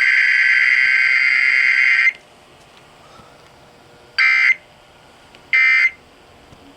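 Emergency Alert System SAME data tones: a long screeching digital burst that cuts off about two seconds in. After a pause come two short bursts about 1.3 seconds apart, the spacing of the end-of-message code.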